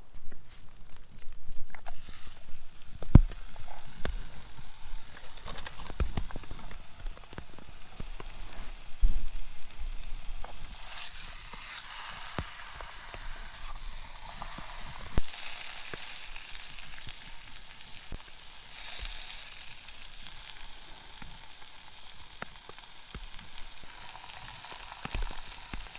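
Seasoned chicken frying and sizzling, with crackling spatter, starting about two seconds in. A few sharp knocks sound over it, the loudest around the first quarter and near the middle.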